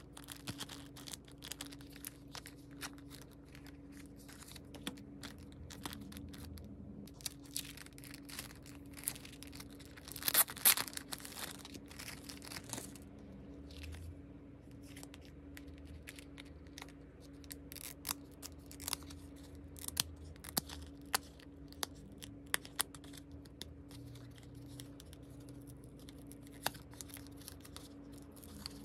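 Crinkling of a clear plastic package and handling and peeling of paper sticky notes, many small scattered rustles and clicks, with one louder tearing sound about ten seconds in. A steady low hum runs underneath, and the footage is sped up to double speed.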